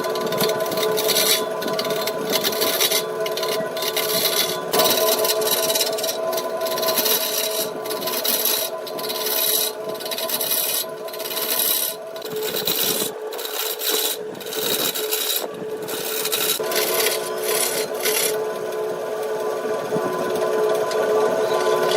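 Wood lathe running with a steady motor hum while a turning tool scrapes and cuts the spinning wood, the cutting noise breaking off again and again as the tool lifts away.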